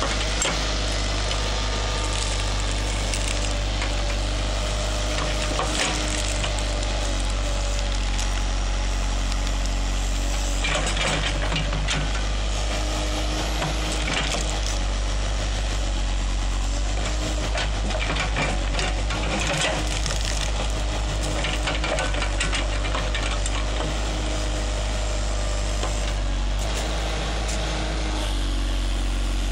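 JCB Sitemaster backhoe loader's diesel engine running steadily as a constant low hum, with crackling and snapping of roots and soil as the bucket tears out a tree stump, busiest in the middle.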